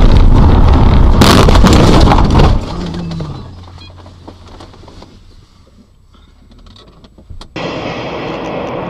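Dashcam car colliding with the rear of another car: loud driving noise, then a crash of the impact about a second in that lasts about a second and a half and dies away. About seven and a half seconds in, the steady road noise of a car driving starts suddenly.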